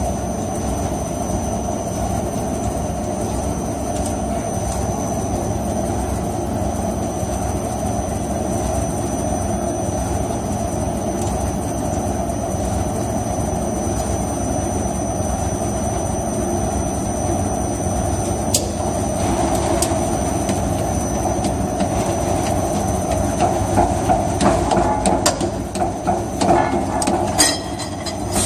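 ERP 900 automatic compressor cutter running steadily as it cuts through the steel shell of a sealed refrigeration compressor. Irregular clanks and knocks join in over the last few seconds.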